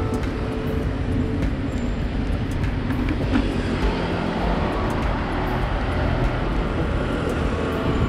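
Road traffic heard from a moving bicycle: the steady run of car and motorcycle engines over a low rumble. A motorcycle passes close by about three to four seconds in.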